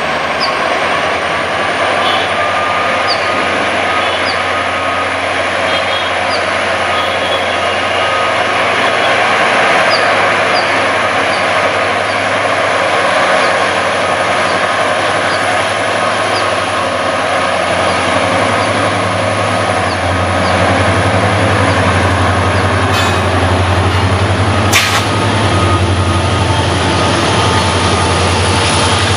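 EMD WDP 4B diesel-electric locomotive, a two-stroke EMD 710 engine, notching up and pulling a passenger train away from a halt, with a turbocharger whine rising in the first couple of seconds. Its deep engine drone grows louder past the middle as it draws alongside, and there is a sharp clack near the end.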